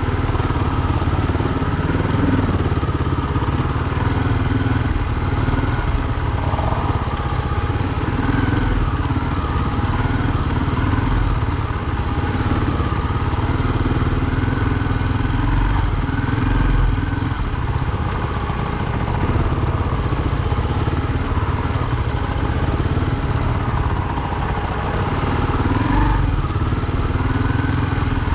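Off-road motorcycle engine running under way, its revs rising and falling gently every few seconds over a steady low rumble.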